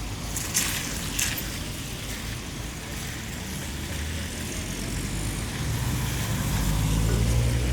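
Town traffic on a wet road: a steady hiss of tyres on wet tarmac, with two sharp knocks about half a second and a second in. A vehicle engine grows louder toward the end as it approaches.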